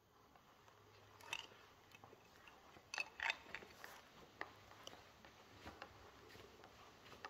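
A quiet, echoing church interior with scattered light clicks and small knocks, the loudest a short cluster about three seconds in.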